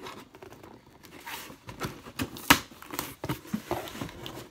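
Cardboard shipping box being opened by hand: a run of irregular rustles, scrapes and knocks, with one sharper, louder knock about two and a half seconds in.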